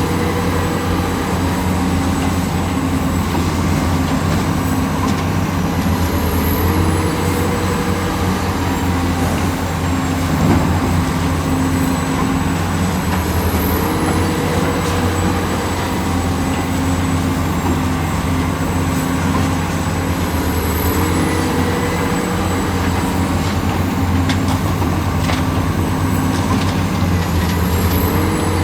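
Heavy diesel machinery running steadily, typical of an excavator at work. Its engine note steps up and down in a cycle that repeats about every seven seconds.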